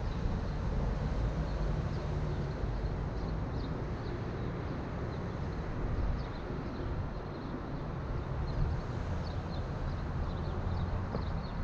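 Steady low rumble of a car driving slowly on city streets, heard from inside the car, with faint short high chirps scattered through it that come more often near the end.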